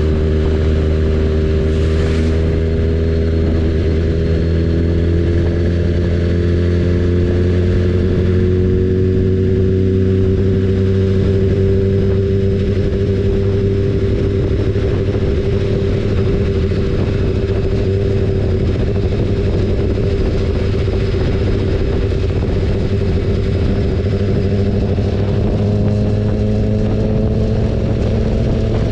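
BMW S1000RR inline-four motorcycle engine running steadily under way, its pitch drifting slowly down and then back up with the throttle, over a steady rush of wind and road noise.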